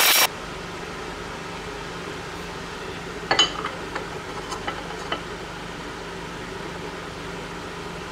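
Cutting noise from a milling machine machining aluminum angle stops abruptly at the very start. After that, a steady low hum carries on under a few light scratches and ticks between about three and five seconds in, from a steel scriber drawn around a template on a blued aluminum plate.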